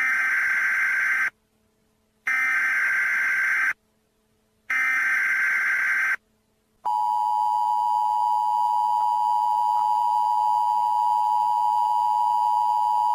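Emergency Alert System header tones: three short bursts of screeching digital data, each about a second and a half long with a second of silence between. About seven seconds in, the steady two-tone EAS attention signal starts and holds.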